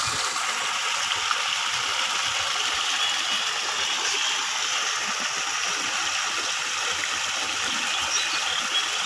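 Fast-flowing rainwater gushing and splashing steadily into a set fine-mesh fishing net.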